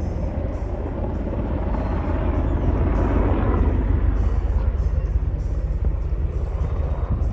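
Military helicopter hovering, a steady deep rotor chop with engine noise, growing a little louder about three seconds in and easing off again.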